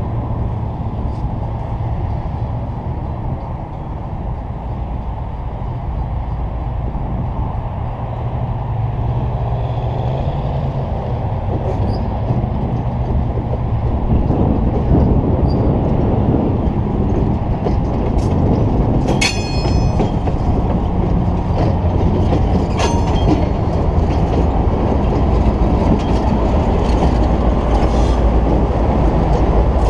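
GE diesel-electric locomotives, a U23B and a B23-7 with 12-cylinder FDL engines, running at low speed, the engine drone growing louder as they approach and pass close by. Two brief high squeals come about two-thirds of the way through.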